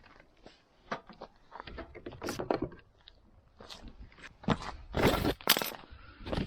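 Irregular crunching and scraping handling noises close to the microphone, with the two loudest knocks about five seconds in.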